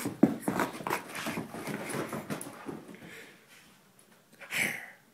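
A dog in rough play, making short irregular dog noises amid scuffling and knocks, with one louder burst near the end.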